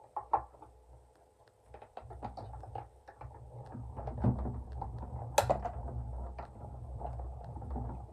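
Hand-cranked die-cutting machine. A couple of clicks as the cutting plates are set in, then from about two seconds in a low steady rumble with frequent small clicks as the handle is turned and the plates roll through the rollers, with one sharp click about halfway through.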